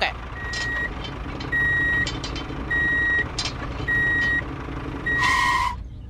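Vehicle reversing alarm: five steady single-pitch beeps, each about half a second long and a little over a second apart, over a low engine rumble. A short hiss comes with the last beep.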